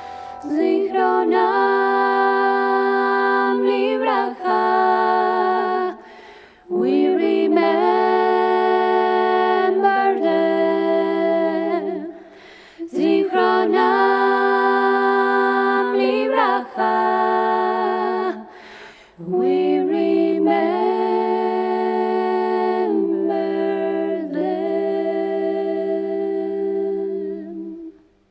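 A woman's voice singing a cappella in layered harmony, several parts by the same singer, in long held notes. The phrases are separated by short breaks, and the singing fades out at the end.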